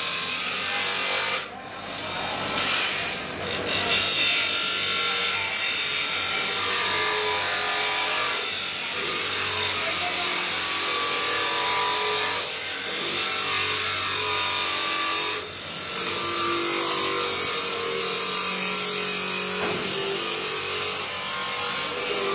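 Electric motor spinning an abrasive wheel with a carbon-steel kukri blade pressed against it: a steady, loud rasping hiss of steel being ground. It drops off briefly twice, as the blade comes off the wheel.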